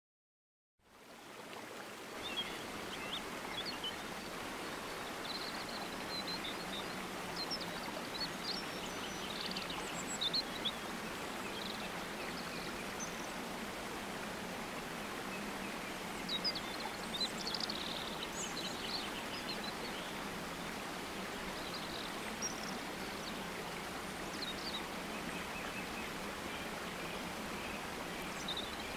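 Nature ambience: a steady rush of flowing water with small birds chirping now and then, fading in over the first couple of seconds.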